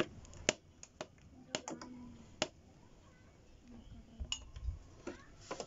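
Scattered light clicks and knocks of a plastic power-adapter brick and its cable being handled and set down on a tabletop while the mains plug is pushed in.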